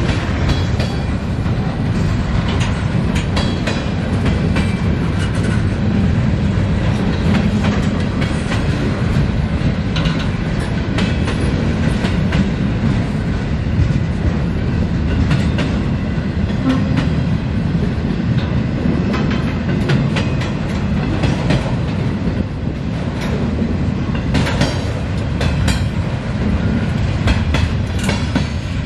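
Freight cars rolling steadily past: a continuous low rumble of steel wheels on rail with repeated clickety-clack clicks as wheels cross the rail joints. Covered hoppers give way to flatcars loaded with steel coils.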